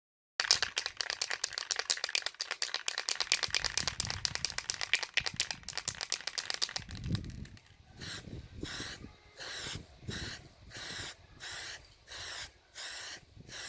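Hand scraping or rasping: dense rapid crackling for about seven seconds, then even back-and-forth rasping strokes, roughly two a second.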